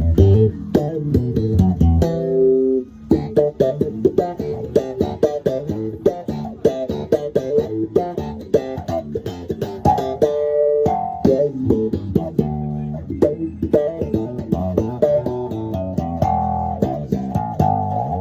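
Fender Jazz Bass played slap style through an Electro-Harmonix Nano Q-Tron envelope filter: a busy run of sharp slapped and popped notes, with a few longer held notes in between.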